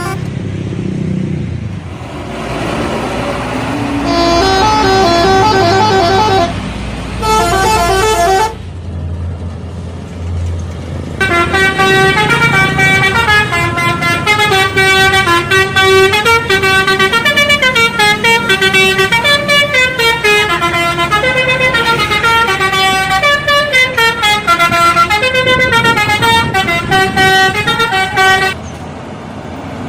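Indonesian bus 'telolet' musical horns playing fast tunes of quick stepped notes, a short passage in the first third and then a long unbroken run from about eleven seconds until just before the end. A bus engine runs under the first passage.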